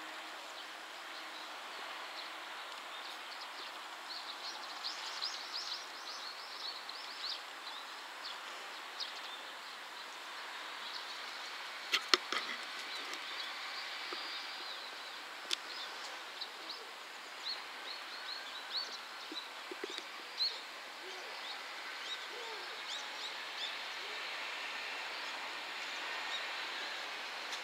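Outdoor rural ambience with many short bird chirps, after the last moment of a diesel railcar's horn dies away in the first second. A pair of sharp clicks sounds about 12 seconds in, and another single click a few seconds later.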